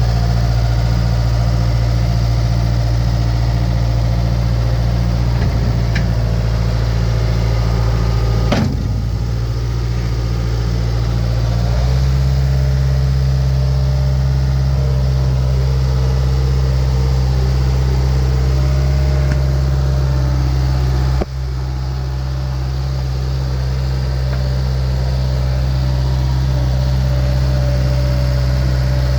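Four-cylinder Caterpillar diesel engine of a 2004 CAT 236B skid steer idling steadily. Its note steps slightly about twelve seconds in, and there is a single knock before that.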